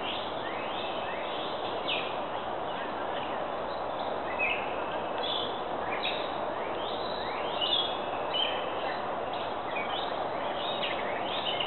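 Small woodland songbirds chirping, with many short, quick notes that slide up or down in pitch, scattered throughout over a steady background hiss.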